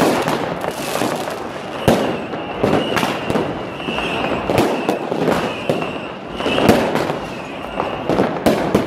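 New Year's Eve fireworks and firecrackers going off: a string of irregular sharp bangs over continuous crackling.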